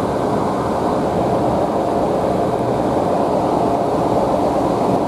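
Class 153 diesel railcar running at speed, heard from inside the carriage: a steady drone of the underfloor diesel engine mixed with wheel-on-rail rumble.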